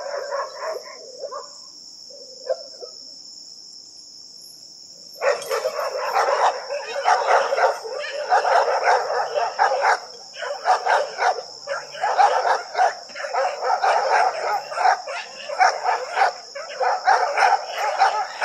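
Crickets chirring steadily; about five seconds in, kennel dogs break into rapid, continuous barking that goes on to the end, after a few short barks near the start.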